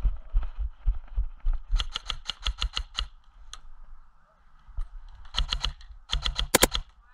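Airsoft rifle firing three short strings of rapid shots, about seven a second, with the last string the loudest. Low thumps of running footsteps come before the first string.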